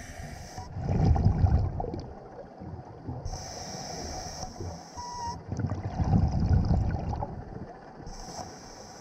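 Scuba diver breathing through a regulator underwater: a hiss from the demand valve on each breath in, at the start, about three seconds in and near the end. Between them comes low bubbling as exhaled air leaves the regulator, about a second in and again about six seconds in.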